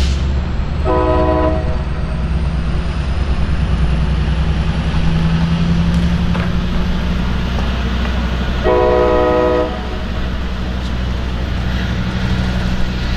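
Passenger diesel locomotive running steadily as it hauls a bilevel train past. Its multi-tone horn sounds two short blasts, about a second in and again about nine seconds in.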